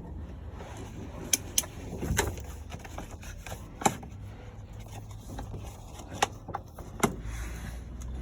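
Scattered sharp clicks and knocks, about six of them, of a screw and tools tapping against the metal latch mechanism inside a Ford Transit's sliding side door, over a steady low rumble.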